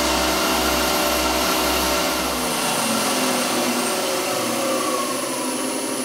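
Variable-speed wood lathe running with no load, its motor whine near top speed, then falling in pitch about halfway through as the spindle slows from about 3000 rpm to about 1500 rpm.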